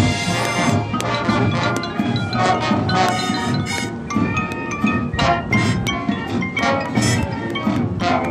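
A band playing, with mallet percussion such as bells and marimba ringing out in quick struck notes over the ensemble.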